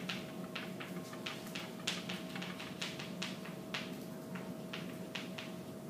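Chalk writing on a chalkboard: short, sharp taps and scrapes at an irregular pace, a few strokes a second.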